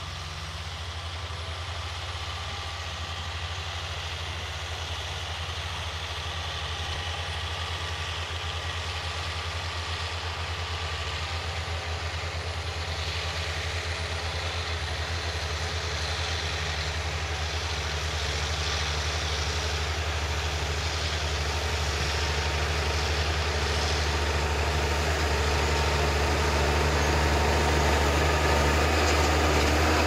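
New Holland T6050 tractor's six-cylinder diesel engine running steadily under load as it pulls a plough through rough ground, growing steadily louder as the tractor comes closer.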